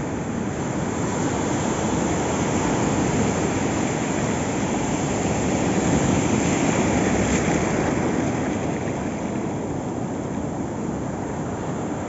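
Shallow ocean surf washing in over the sand: a steady rush of foaming water that swells and eases with the incoming waves.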